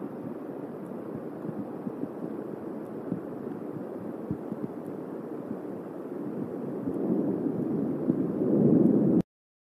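Thunderstorm heard through an outdoor nest-cam microphone: a steady, low rumbling noise that swells louder about seven seconds in and again near the end, then cuts off abruptly.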